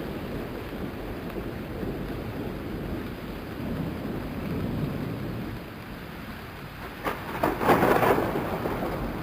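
Thunderstorm sound effect: a low rolling rumble with rain, and a louder, sharper crack of thunder about seven seconds in that lasts about a second.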